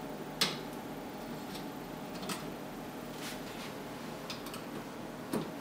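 A few faint, irregular clicks and taps of a screwdriver working the plastic retaining clips at the ends of a dishwasher's upper-rack rails, over quiet room tone.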